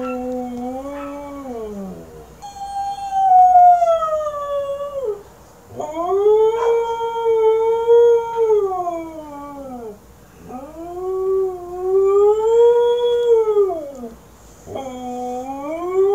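A husky howling: a series of about five long howls, each rising and then sliding down in pitch, with short breaths between them.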